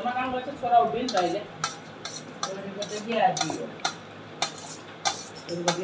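Metal spoon clinking and scraping against a stainless steel plate while eating rice, about a dozen irregular sharp clinks. Short voice-like sounds come at the start and about three seconds in.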